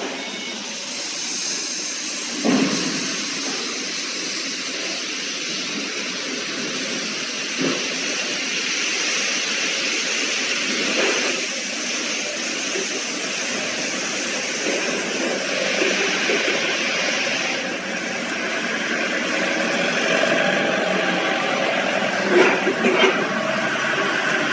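100 kg capacity industrial washing machine running, a steady loud rushing noise with a few dull knocks, the last of them close together near the end.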